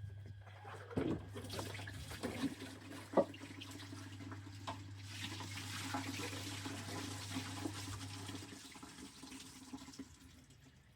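Water running and splashing as a Thetford C250 toilet cassette is rinsed out, with a few sharp knocks in the first few seconds. A steady low hum under it stops near the end.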